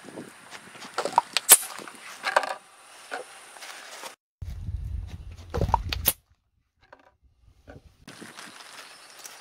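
Plastic Right Guard bottle crushed under a car tyre on asphalt: a run of sharp cracks and crunches about a second in as the bottle splits and its cap pops off. A second burst of cracking follows at around five to six seconds over a low rumble.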